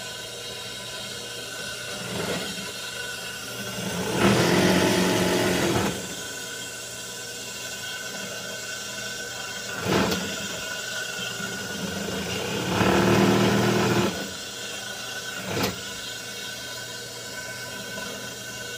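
Industrial single-needle sewing machine: its motor hums steadily, and twice the machine stitches in a short run of about two seconds, once near the start and once past the middle. Two sharp clicks come in between the runs.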